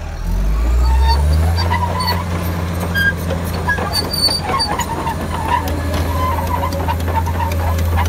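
Komatsu D65PX crawler bulldozer's diesel engine running as the machine tracks forward: a low steady drone that revs up in the first second or so, then holds. Scattered short squeaks and clinks come from the steel tracks.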